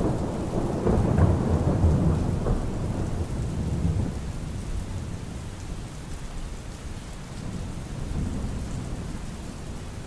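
Steady rain with thunder rumbling over the first few seconds and slowly dying away.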